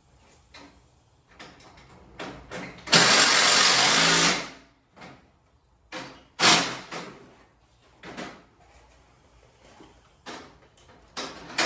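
A power driver runs in one loud burst of about a second and a half, driving in a fastener on a garage door panel, with a shorter burst a few seconds later. Scattered clicks and knocks of hardware being handled come in between.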